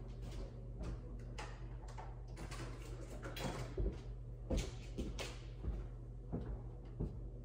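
Kitchen handling sounds: a string of light knocks, clicks and short swishes, a dozen or so spread unevenly, over a low steady hum.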